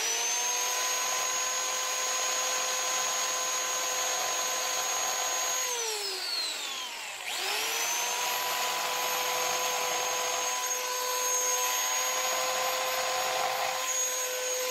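High-speed power tool spinning a carbide burr, grinding casting marks out of an aluminium cylinder head's exhaust port: a steady high motor whine over a rasping grind. The motor winds down about six seconds in and spins back up about a second later.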